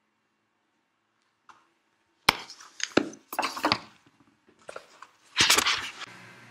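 Near silence, then from about two seconds in a run of sharp cracks and crackling clatters, loudest near the end.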